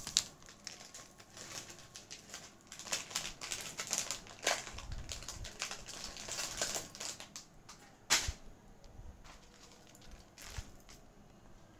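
Light, irregular clicking and rattling of a beaded necklace's gold-plated beads and metal fittings as it is handled and its strands are straightened, with some soft plastic rustling; one sharper click about eight seconds in.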